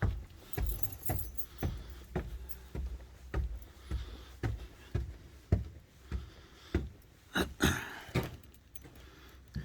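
Footsteps climbing a staircase: a steady run of dull thuds about twice a second that stops near the end, with a brief rustling clatter just before it stops.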